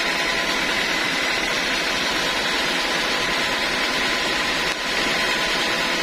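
Band sawmill running without cutting, a steady machine noise with a faint high whine from the spinning blade and drive.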